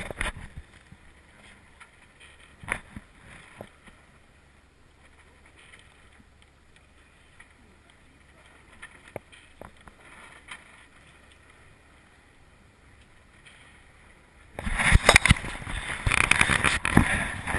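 Sounds aboard a yacht under engine at sea: a faint steady low hum with a few light knocks, then a loud rushing noise that starts suddenly about three seconds before the end.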